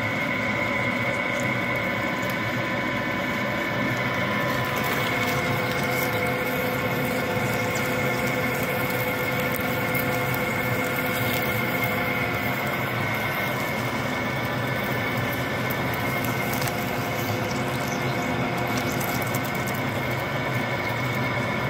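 Radial arm drill running with its twist bit cutting through 3/4-inch T1 steel plate: a steady whine with a grinding cut that holds at an even level.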